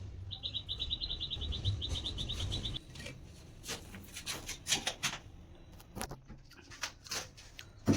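A bird's rapid chirping trill, about ten even chirps a second for some two and a half seconds, over a low rumble; after it, scattered light taps and clicks.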